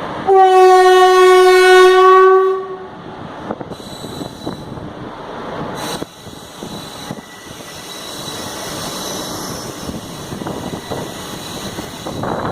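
A train horn sounds one steady blast of about two seconds, then the train runs on with the rumble and clatter of its wheels on the rails.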